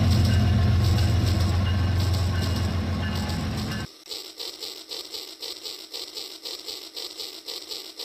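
Model train running on its track: a loud low rumble that stops suddenly about four seconds in, then a quieter, steady clickety-clack of wheels passing over rail joints.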